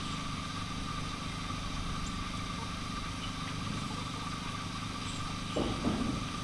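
A steady motor-like drone with a constant high hum over it, and about a second before the end a short call with a falling pitch.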